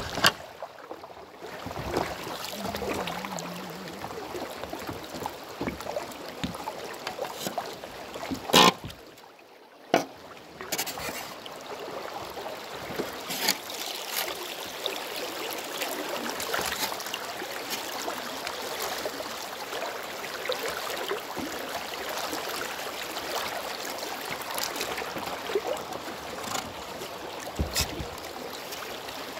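Glacial mountain river rippling and flowing over rocks in a shallow riffle, a steady wash of water. A few sharp knocks stand out, the two loudest about a third of the way in.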